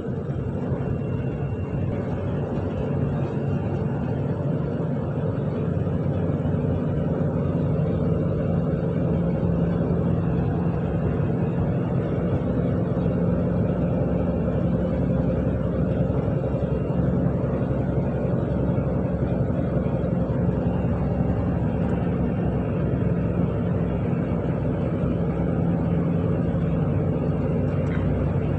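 Tata truck's diesel engine running under way with tyre and road noise, heard inside the cab; the engine note grows a little louder a few seconds in and then holds steady.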